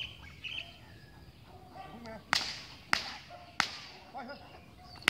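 A whip cracking sharply three times in quick succession, about 0.6 s apart, starting a little over two seconds in, with a fourth crack at the very end.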